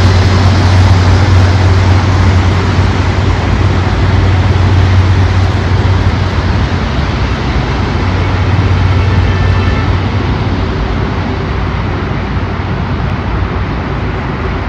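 Jet engine noise from an Airbus A330 airliner rolling out along the runway after touchdown: a loud, steady rush with a deep low hum that slowly fades as the aircraft slows and moves away.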